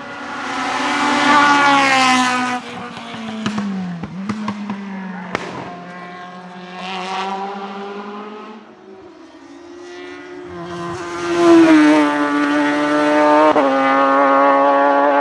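Hillclimb single-seater race car engines revving hard at high rpm. The pitch swells and then falls away around the fourth second, with a few sharp cracks. A second, louder surge comes near the end, with a sudden step in pitch from a gear change.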